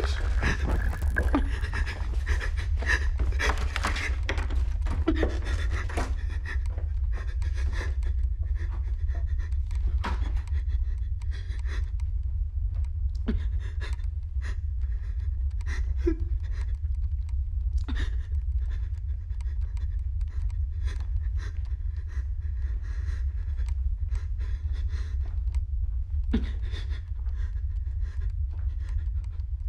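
A person panting heavily, with scattered knocks and scuffs, over a steady low rumble.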